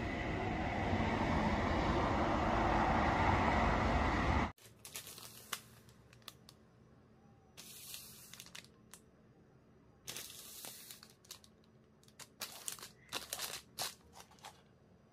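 A loud, steady rushing noise that cuts off suddenly about four and a half seconds in. After it, the plastic wrappers of packaged snack breads crinkle in several short bursts as they are handled and laid out.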